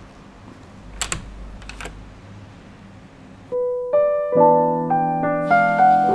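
Smartphone ringtone ringing: a run of sustained electric-piano-like notes that enter one after another and stack up, starting about three and a half seconds in. Before it, only a low background with two faint clicks about a second in.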